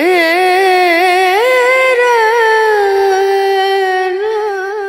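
Solo singing voice in a music track, holding long notes with a wavering vibrato, stepping up in pitch about a second and a half in, then holding the note and easing off slightly near the end.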